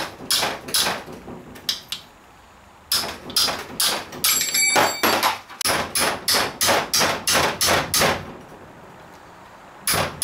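Hammer tapping the back of a wrench fitted to a stuck, gunked-up bolt on a 42RH/A500 automatic transmission case. The sharp metal taps come in quick runs of about three a second, with two short pauses.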